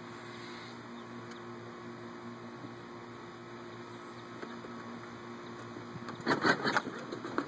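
Electric motor of a children's ride-on toy Escalade humming steadily as it drives, with a few sharp, louder sounds near the end.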